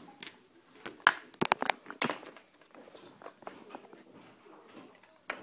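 Small plastic toy figurines being handled and set down on a surface: a quick cluster of sharp clicks and knocks between about one and two seconds in, soft rustling after, and a single knock near the end.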